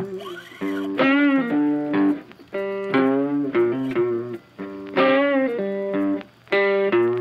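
Background music led by guitar, a melody of plucked notes that bend and waver in pitch.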